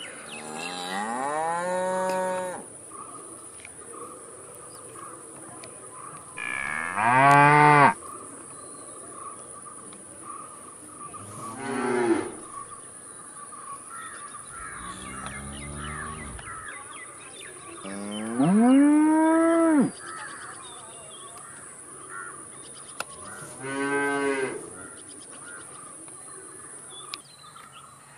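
Cows mooing: about six long moos a few seconds apart, several rising in pitch and then breaking off. The loudest come about seven seconds in and again at about nineteen seconds, and a lower, quieter moo falls about fifteen seconds in.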